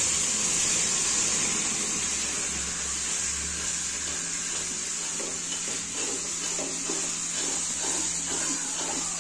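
Water poured into a hot kadhai of roasted halwa mixture, hissing and sizzling as it hits, the sound easing off over the first few seconds. From about five seconds in, a spoon stirs and scrapes the thickening halwa against the pan in quick repeated strokes.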